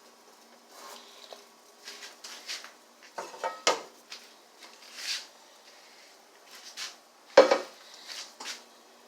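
Kitchenware being handled: pots and metal utensils clinking and knocking in scattered short strikes, with one sharp knock about seven seconds in the loudest.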